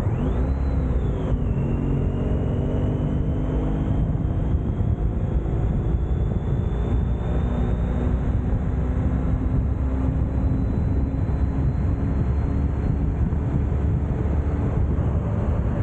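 Honda ST1300's V4 engine under way as the motorcycle accelerates: the engine note dips at a gear change about a second and a half in, then climbs slowly as speed builds. Heavy low wind rumble on the bike-mounted microphone runs under it.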